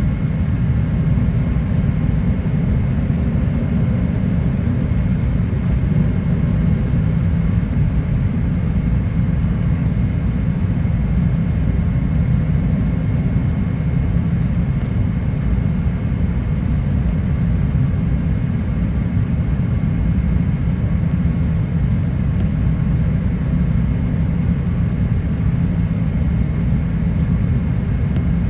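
Steady low rumble inside the cabin of a Boeing 787-8 descending on approach: engine and airflow noise heard from a window seat, with a faint steady high whine on top.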